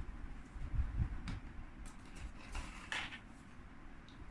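A few light plastic clicks and handling rustles as the parts of a cordless stick vacuum are unlatched and pulled apart, the loudest click about three seconds in. The motor is not running.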